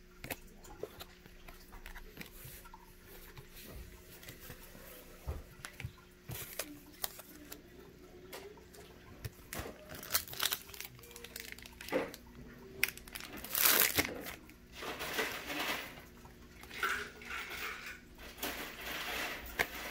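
Pokémon trading cards being handled and flipped through, with scattered light taps and clicks and bouts of crinkly rustling, busiest in the second half. A faint steady low hum runs underneath.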